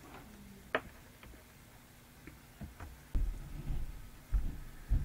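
Faint computer mouse clicks as the slides are advanced: a sharp click under a second in, then a few fainter ticks. These are followed by dull low thumps about three and four seconds in, the loudest sounds here.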